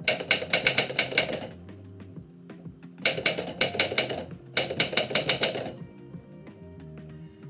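Typewriter keys striking the platen in three quick runs of typing, with short pauses between them, over background music.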